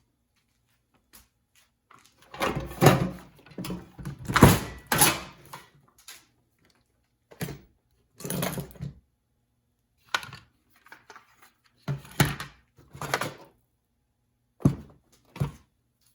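Irregular clunks, knocks and rattles of parts and tools being handled and set down, coming in several clusters with short pauses between.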